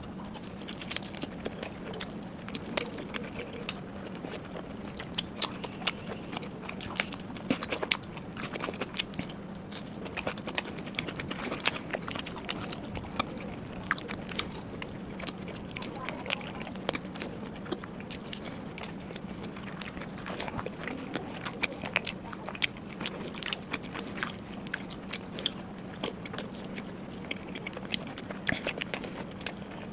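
Close-miked chewing of flatbread and paneer curry: a steady run of small wet mouth clicks and smacks, over a faint steady hum.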